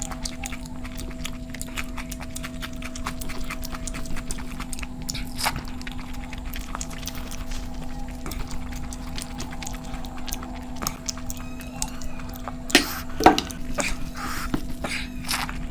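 Close-miked eating: chewing and mouth clicks. A steady hum runs underneath, and two louder knocks come close together about thirteen seconds in.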